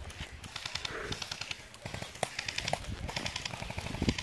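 Airsoft guns firing in rapid bursts, each a fast string of sharp clicks, with footsteps and rustling in dry grass underneath. A thump about four seconds in.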